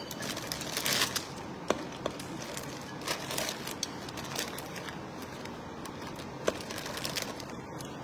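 Thin clear plastic takeaway food bags crinkling and rustling as they are handled, in short spells with small sharp crackles.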